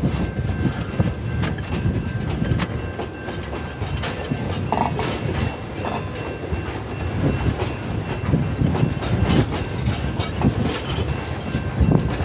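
Freight train of tank cars rolling through a road grade crossing: a steady low rumble with irregular clacks of the wheels over the rails.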